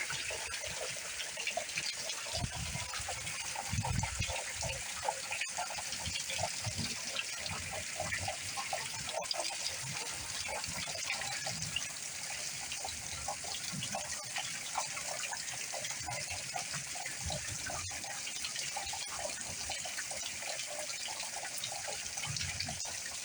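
Steady heavy rain pouring and splashing, with many small drops and splashes all through.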